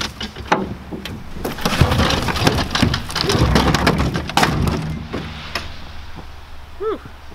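A push lawn mower dragged across a snow-covered pickup bed and heaved over the side onto a scrap pile: scraping with a run of clattering knocks of metal and plastic, busiest in the middle.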